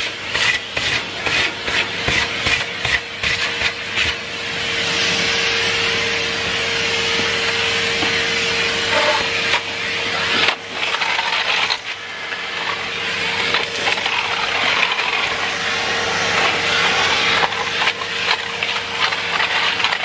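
Numatic Henry cylinder vacuum cleaner running with a steady motor hum and rushing suction. Its metal wand and floor tool scrape over rough concrete, and grit rattles up the wand in quick clicks during the first few seconds and again near the end.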